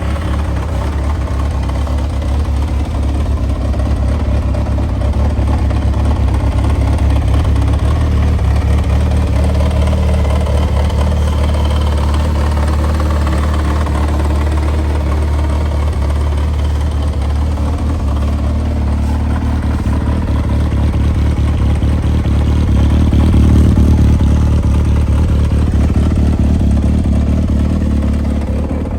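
Yamaha XJR400R's air-cooled inline-four engine idling steadily with a deep, low exhaust note through a K2TEC aftermarket silencer, swelling a little about three-quarters of the way through.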